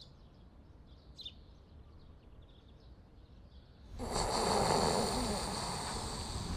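Faint outdoor quiet with a few thin high chirps. About four seconds in, a person starts snoring with a long, loud rasping breath.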